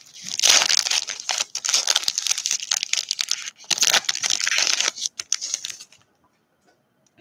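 A trading-card pack wrapper being torn open and crinkled: a dense crackling rustle that stops about six seconds in.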